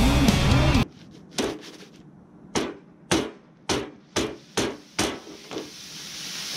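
Loud music stops abruptly just under a second in. It is followed by about nine sharp knocks, like hammer blows, coming irregularly about every half second, each ringing briefly.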